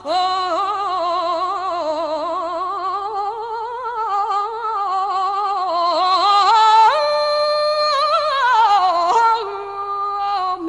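A singer draws out one long, ornamented wordless phrase with a wide vibrato, the melody winding up and down. About two-thirds through the voice climbs to a held note, then falls and settles on a lower held note near the end.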